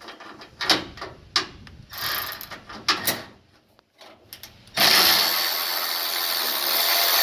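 Bolts being taken off with a wrench: a few sharp clicks and knocks, then about five seconds in the tool runs loudly and steadily for a few seconds.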